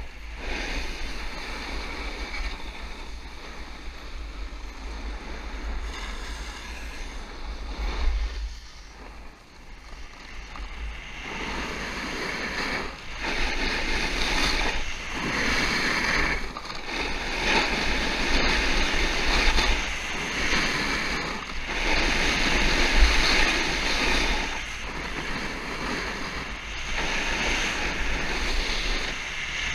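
Snowboard base and edges sliding and carving on firm snow: a hissing scrape that swells and fades with each turn and dips briefly about a third of the way in. Wind buffets the body-worn microphone with a low rumble throughout.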